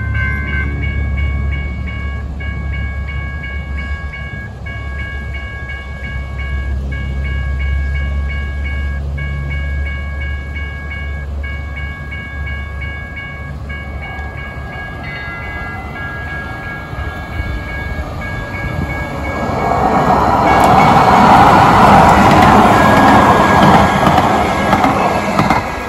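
Railroad crossing bell ringing in an even, repeating pattern. From about 20 seconds in, a TriMet MAX light rail train passes close by, with a loud rush and rumble of wheels on rails.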